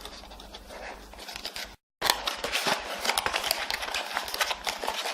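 Handling noise from unpacking a lavalier microphone and its box: rustling and many small clicks and taps. The sound drops out completely for a moment about two seconds in, then comes back louder and busier.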